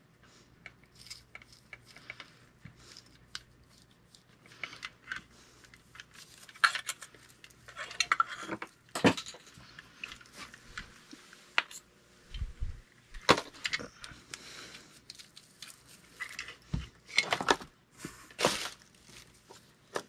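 Hands handling electrical leads and twist-on wire connectors while wiring up a ceiling fan speed control: irregular clicks, rustles and small clinks, with a couple of dull knocks about twelve seconds in.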